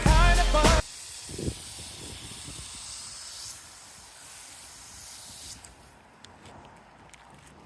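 Soft-wash hose nozzle spraying with a steady hiss for about five seconds, then stopping, followed by a few faint clicks.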